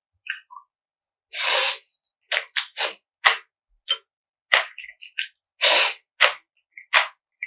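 Close-miked eating sounds of bibim-guksu (spicy mixed noodles): two longer slurps of noodles, about a second in and again near six seconds, with short crisp chewing and mouth sounds in between.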